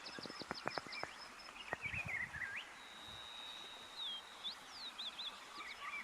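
Faint outdoor birdsong: many short chirps and whistled notes that slide up and down, with one held whistling note about halfway through. A few soft clicks sound in the first couple of seconds.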